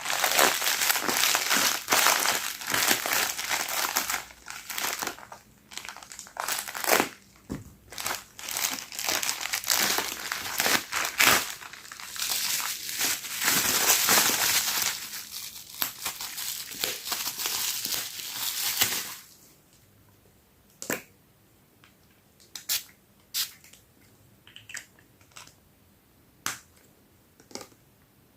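Parcel packaging crinkling and rustling continuously as it is handled and unwrapped. About two-thirds of the way through this stops, leaving only scattered light clicks and rustles.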